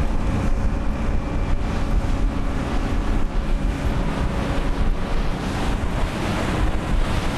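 Wind rushing over the microphone on the deck of a moving cruise boat, with a steady low rumble of the boat and water underneath.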